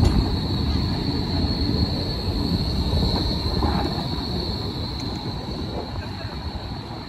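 Bombardier Flexity tram passing close on street track, its low rumble fading as it moves off. A steady high squeal from the wheels on the track runs over it.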